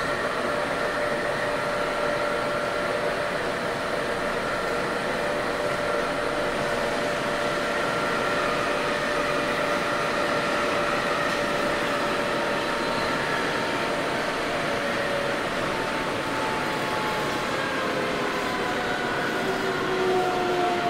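Running noise of a Sendai Subway 1000N-series train heard from inside the car: a steady rumble of wheels on rail under the whine of the traction motors. From about 15 seconds in, the whine falls in pitch as the train slows.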